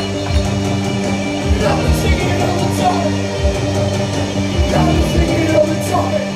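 Post-punk band playing live: held bass and guitar notes over a steady drum beat, with a sung vocal line coming in near the end.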